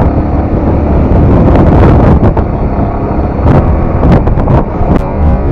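Wind buffeting the microphone on a moving motorcycle, with the engine running underneath and a few brief knocks.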